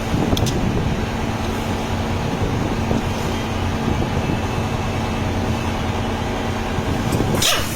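A machine running steadily with a constant low hum, with a few short clicks near the end.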